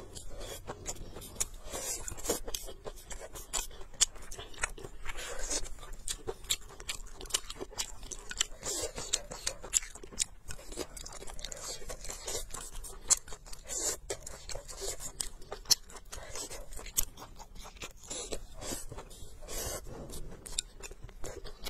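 Close-miked chewing and biting of food, with many sharp crunches and wet mouth smacks.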